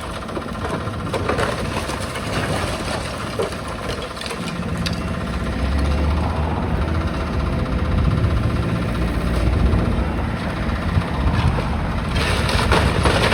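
Demolition excavator's diesel engine running steadily under load, with a few crunches and knocks of masonry being broken, the loudest near the end.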